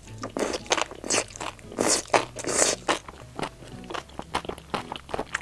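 Close-miked eating of a sauce-coated enoki mushroom skewer: several loud, wet bites in the first three seconds as the strands are pulled off the skewer, then quick, crisp chewing.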